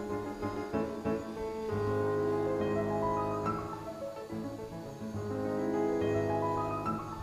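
Background music: piano playing slow, sustained chords.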